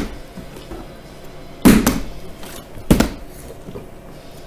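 Plastic water bottle being flipped and hitting a hardwood floor: two loud knocks about a second apart, with a softer tap between them.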